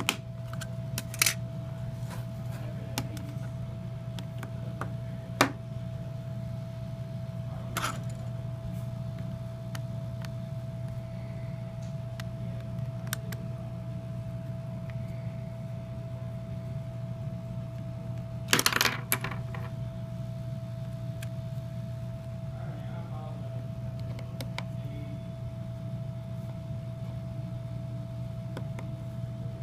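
Occasional sharp clicks and taps of small parts and tools being handled while a cell phone is taken apart, with a short cluster of clicks about 19 seconds in. Under them runs a steady low electrical hum with a faint constant high tone.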